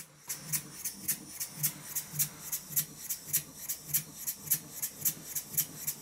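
Model beam engine with a rotary valve, running on compressed air: an even rhythm of exhaust chuffs, about three to four a second.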